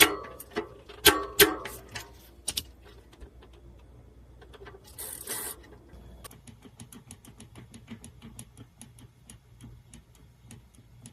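Steel tools clinking against a bicycle cassette as a cassette lockring tool and adjustable wrench are put to work tightening a loose lockring, a short scrape about five seconds in, then a long run of fast, light, even ticks from the rear hub and cassette.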